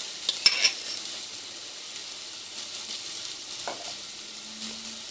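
Chopped onion sizzling as it fries in oil, a steady hiss. About half a second in, a spoon clinks once against a glass bowl.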